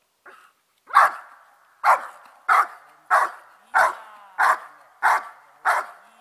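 A dog barking repeatedly at the protection-work helper, about eight evenly spaced barks at roughly one and a half a second, starting about a second in.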